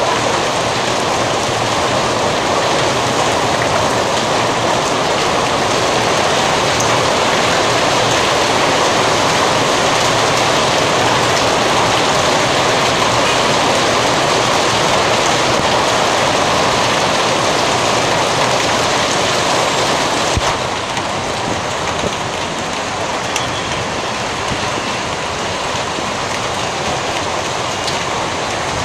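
Heavy hail and rain pelting a road and parked cars, a dense, steady noise. About two-thirds of the way through it turns a little quieter.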